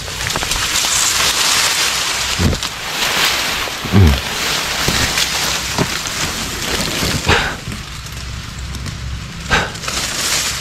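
Leaves and grass rustling and brushing close by in dense undergrowth, a steady hiss broken by a few sharp snaps or cracks.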